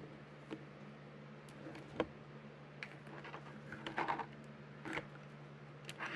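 Scattered small clicks and knocks of a ball-jointed doll and its plastic doll chair being handled and posed, the sharpest about two seconds in and a short cluster around four seconds, over a steady low hum.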